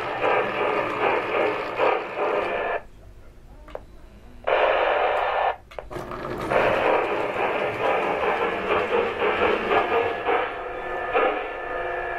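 Lionel O gauge 4-6-4 Hudson model steam locomotive running around the track with a steady rushing noise. The noise cuts out for about a second and a half around three seconds in, and briefly again just before six seconds.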